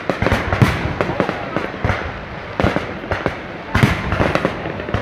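Aerial firework shells bursting in quick succession, a dense run of bangs in the first second followed by further bursts, with another cluster near the end.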